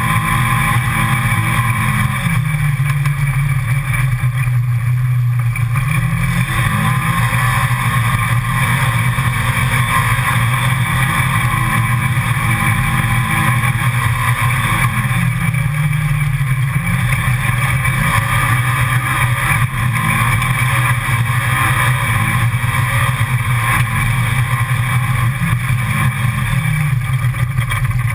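Side-by-side UTV engine running steadily as it drives a rough dirt trail, its pitch rising and falling a little a few times with the throttle.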